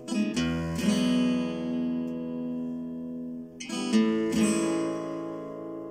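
Acoustic guitar strummed chords: two strums near the start and two more about four seconds in, each chord left to ring between them.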